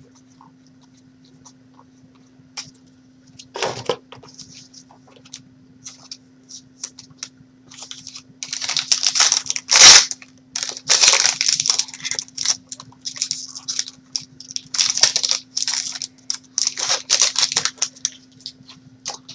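Plastic wrapper of a trading card pack being torn open and crinkled. Scattered small clicks give way, about eight seconds in, to a run of rustling tears, with one sharp snap near ten seconds. A steady low hum sits underneath.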